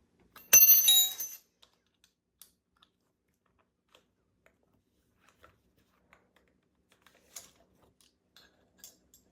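A sharp metal clink that rings on with high tones for under a second, about half a second in, as metal strikes metal, followed by faint scattered clicks of tools and parts being handled.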